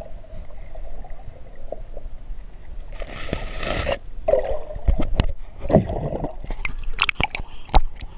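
Underwater noise picked up by a GoPro in its waterproof housing: muffled low rumble and gurgling water with knocks and scrapes of the housing. A burst of hiss comes about three seconds in, and a run of sharp clicks near the end.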